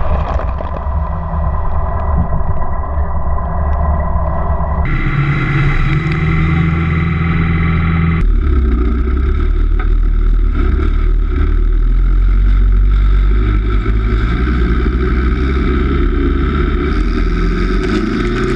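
Homemade off-road buggy's engine running steadily while the buggy drives through mud and water, heard close up from on board with mud spraying. The sound shifts abruptly a few times, about 5 and 8 seconds in and near the end.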